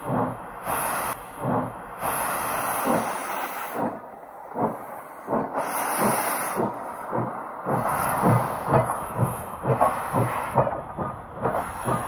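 Steam locomotive with hissing steam blowing out around its cylinders and wheels, and exhaust chuffs that come faster, about three a second, in the second half.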